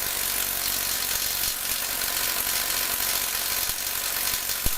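DeWalt cordless impact tool hammering continuously on a motorbike's rear-wheel bolt without breaking it loose: even on a full battery it won't touch the bolt.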